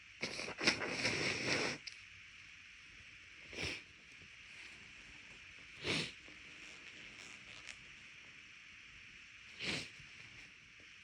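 A person blowing their nose hard for about a second and a half, in a few spurts of air, then three short sniffs a few seconds apart.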